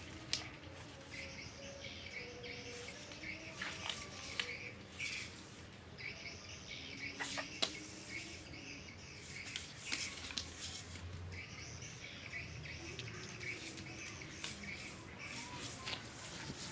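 Birds chirping intermittently in short high calls, with a few faint clicks over a low background hiss.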